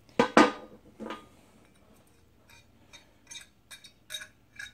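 Allen key and tools clinking on the small steel cap-head bolts of a motorcycle brake caliper's pad shield as the bolts are undone. There are two sharp metal knocks in the first second, then a run of light, quick ticks from about two and a half seconds in.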